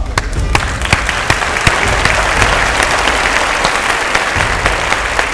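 Studio audience applauding steadily, a dense patter of many hands clapping.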